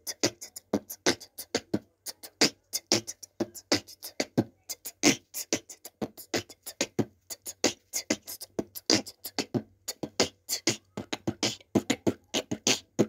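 Outro music: a fast, choppy percussion beat of sharp clicks and hits, about five a second, with no tune.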